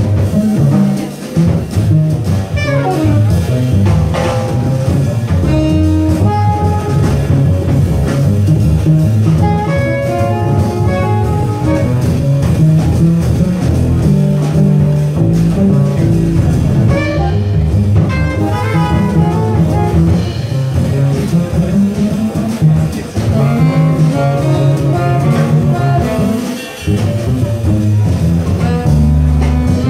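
Small jazz band playing live: saxophone lines over piano, double bass and drums.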